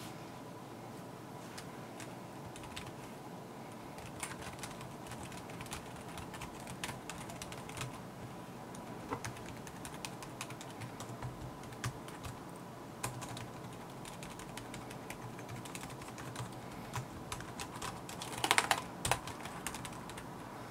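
Typing on an iNote Fusion FS 86367KM wireless keyboard with pantograph (scissor-switch) keys: light, irregular key clicks, with a quick flurry of louder strokes near the end.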